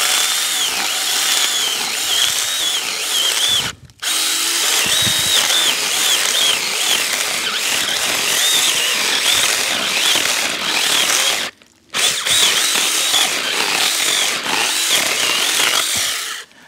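Saker 20V mini battery chainsaw cutting through a dead pine branch about 5 inches thick, its motor whining with a wavering pitch under load. It stops dead twice, about four seconds in and again near twelve seconds, then starts cutting again: the saw halting when the chain binds in the cut and running on once the bar is lifted a little.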